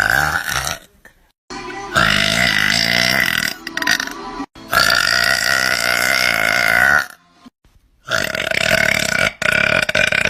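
A girl burping: the end of one burp, then three long, loud burps of two to three seconds each, with short pauses between.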